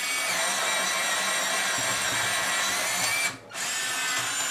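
Afmat fully automatic electric pencil sharpener running, its motor whining steadily while the blades shave a regular wooden No. 2 pencil with a broken tip. It cuts out briefly about three seconds in, runs again for about a second, then stops near the end.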